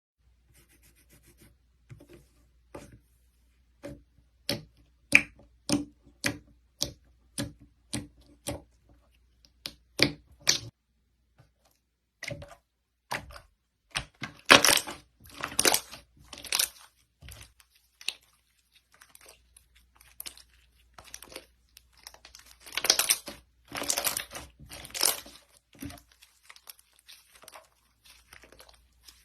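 Yellow hive slime being pressed and stretched, giving a run of sharp pops at about two a second, then longer crackling, tearing stretches twice as it is pulled apart.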